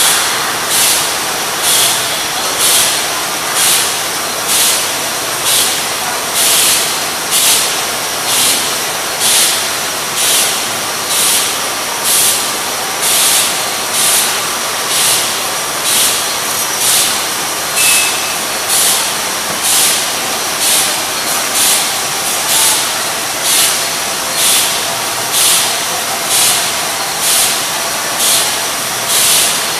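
Beer bottling line running, with a steady machine clatter and an even rhythm of short pneumatic hisses, a little faster than one a second, as bottles cycle through.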